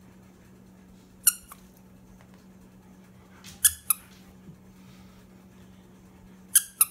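Squeaker inside a plush dog toy squeezed by hand, giving short high squeaks: one about a second in, then a quick pair near the middle and another quick pair near the end.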